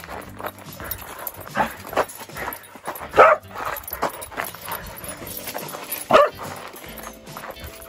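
A dog barking in several short barks, the loudest about three seconds in and another just after six seconds.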